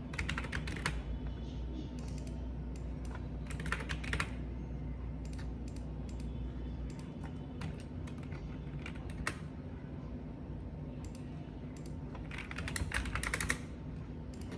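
Typing on a computer keyboard in short bursts of rapid keystrokes, with single scattered key presses between the bursts. A low steady hum lies underneath and drops away about halfway through.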